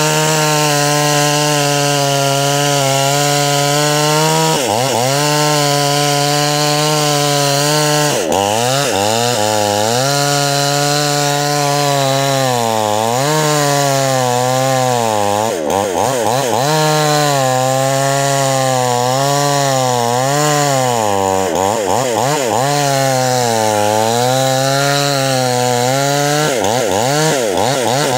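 H&L 5200 two-stroke petrol chainsaw running at full throttle while cutting through a log, its pitch sagging and recovering several times as the chain bites into the wood. Near the end the pitch starts to fall as the throttle is let off.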